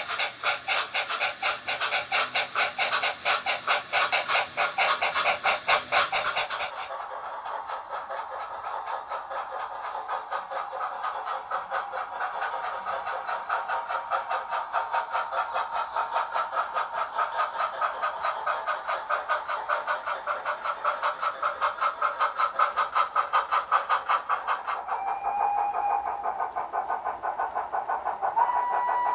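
O gauge model steam locomotives running on the layout: a fast, steady rhythmic chuffing and wheel clatter on the track, changing in tone about seven seconds in. A couple of short whistle-like tones sound near the end.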